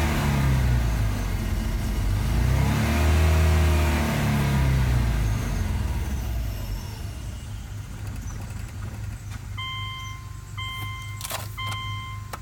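2005 Subaru Outback XT's 2.5-litre DOHC turbocharged flat-four engine blipped once and dropping back to a steady low idle; the owner calls the idle rough after a turbo replacement and suspects the tumble generator valves. Near the end an electronic beep sounds three times about a second apart, with a couple of clicks.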